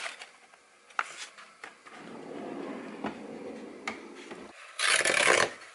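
Household handling noises at a snack cabinet: a few light knocks and the plastic marshmallow bag rustling, then a short, loud swish about five seconds in as the glass cabinet door is pushed shut.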